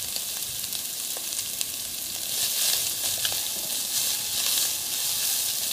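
Minced meat and chopped onion sizzling in a non-stick pot, frying in the meat's own fat without added oil, while being stirred with a plastic spatula. The hiss grows louder about two seconds in.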